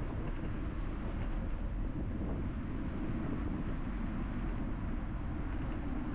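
Steady rumbling street noise heard while riding a bicycle through city traffic: wind on the microphone and passing vehicles, with no single event standing out.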